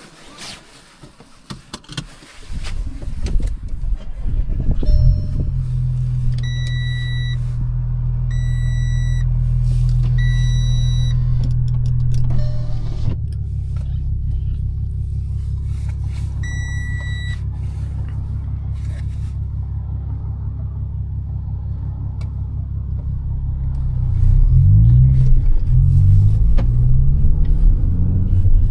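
Audi A5 8T V6 diesel engine starting after a few quiet seconds with some clicks, then idling steadily while a dashboard chime beeps four times. The idle note drops about halfway through, and near the end the engine gets louder and uneven as the car pulls away.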